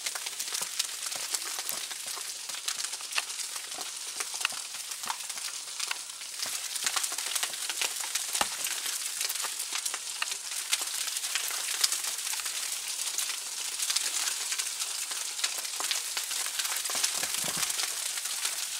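Freezing rain falling on deep snow and snow-covered deck surfaces: a steady, dense crackle of many fine ticks.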